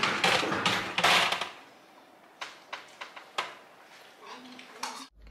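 Household clatter: a loud noisy burst for the first second and a half, then a few sharp clicks and knocks.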